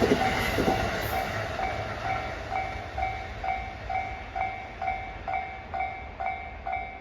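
The tail of a JR East E257-2000 series limited express train rattling over the rails and fading out within the first second or two. A level-crossing warning bell keeps dinging steadily at about two strokes a second.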